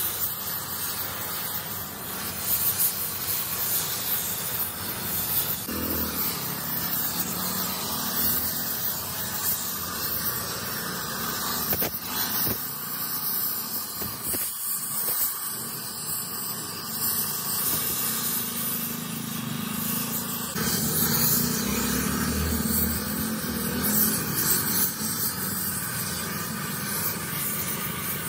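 Gas welding torch flame hissing steadily as filler rod is melted in to build up the bore of a Massey Ferguson tractor's differential housing.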